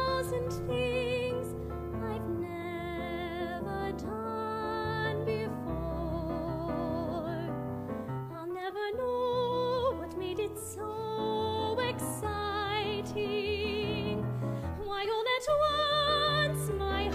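Female soprano singing a show tune with wide vibrato, in phrases with short breaks, over a keyboard accompaniment.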